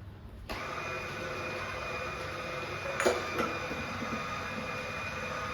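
An electric juice machine's motor switching on about half a second in and running steadily with a high whine, processing fruit for juice. A single knock sounds about three seconds in.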